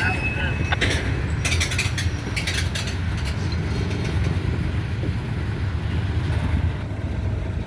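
Freight train cars rolling past, with a brief wheel squeal at the start and a run of sharp clicks from the wheels over rail joints in the first few seconds, over a steady low rumble of wind on the microphone.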